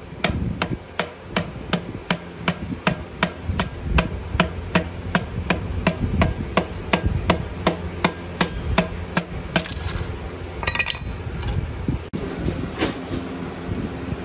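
Steady hammer blows on a metal bar used as a drift, about three a second, driving the cylinder liner into a single-cylinder diesel engine block. The blows stop about two-thirds of the way through, followed by a few lighter metal clinks.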